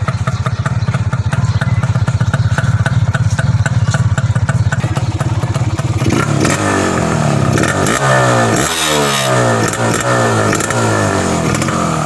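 Kawasaki GTO 125's two-stroke single-cylinder engine idling steadily close to its chrome silencer. From about halfway it is revved in a series of quick blips, the pitch rising and falling with each one.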